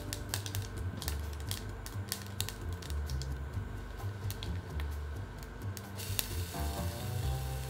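Mustard seeds popping and crackling in hot oil in a small saucepan, with sharp irregular pops. About six seconds in, chopped aromatics are tipped in and the oil breaks into a steady sizzle. Background music runs underneath.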